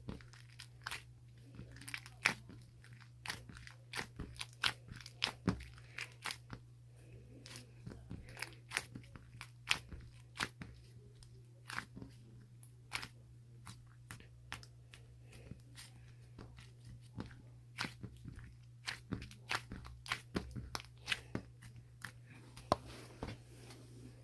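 Irregular sharp crunching clicks, several a second, over a steady low hum.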